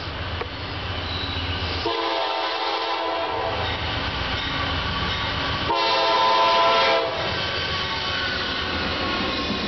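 CSX diesel freight locomotive's air horn sounding two blasts, the first about two seconds in and the second, louder, about six seconds in, over the steady rumble of the approaching train.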